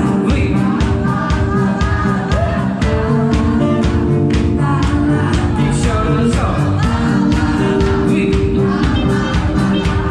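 Live band playing a song: singing over electric guitar and a steady drum beat.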